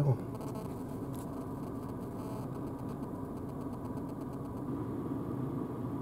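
Renault Zoé's climate control running in the cabin: a steady rush of blown air with a faint steady whine.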